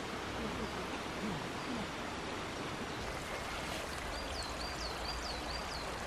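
A stream running steadily over rocks, a constant rushing hiss. About four seconds in, a small bird sings a quick run of about six high notes.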